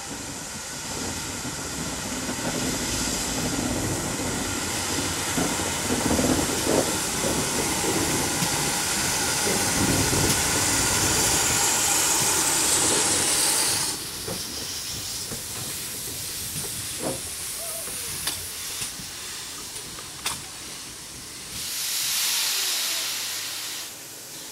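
GWR steam tank locomotive moving slowly with steam hissing loudly and a few exhaust chuffs. The hiss cuts off suddenly about halfway through, followed by a few metallic clanks and then a second shorter blast of steam hiss near the end.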